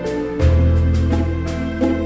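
Background music: sustained low bass notes under a slow melody of held notes, with the bass moving to a new note about half a second in.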